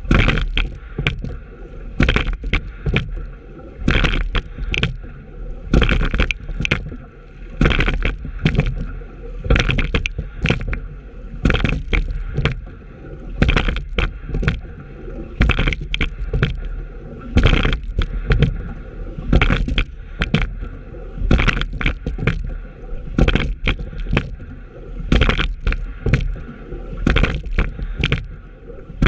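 Single racing scull being rowed steadily: the oars catch and pull through the water with splashes and clunks at the oarlocks, and water rushes along the hull. There is a stroke about every two seconds.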